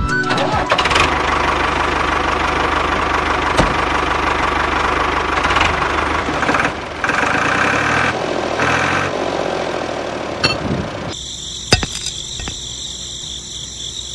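Miniature toy tractor's engine sound running steadily for about eleven seconds, then cutting off abruptly. A steady high electronic tone follows, with a couple of sharp clicks.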